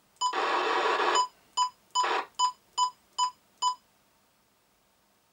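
Cobra 29LXEU CB radio's keypad bleeps: a short beep at each click of the channel selector as it steps up from channel 8 to 19, about eight beeps in quick succession, stopping a little before four seconds in. Twice a burst of hiss from the set's loudspeaker cuts in, about a second long near the start and shorter around two seconds in.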